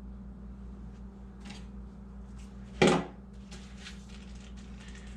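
Small hard computer-build parts being handled: a few faint clicks and one sharp clack about three seconds in, over a steady low hum.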